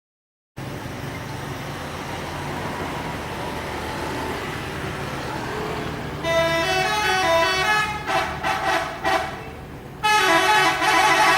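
Indonesian 'telolet' multi-tone bus horn: after a few seconds of steady vehicle rumble, the horn plays a stepping melody, then a run of quick repeated blasts, breaks off briefly and starts blasting again near the end.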